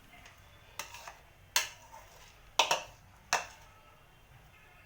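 A spoon knocking against cookware as boiled potato paste is added to the pan: four sharp knocks about a second apart, with a few fainter taps between them.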